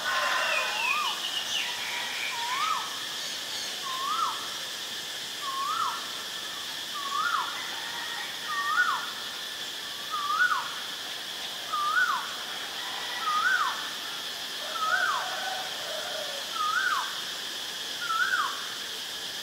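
Asian barred owlet calling: a short rising whistled note that drops off sharply, repeated about every second and a half, about a dozen times, over a steady high drone.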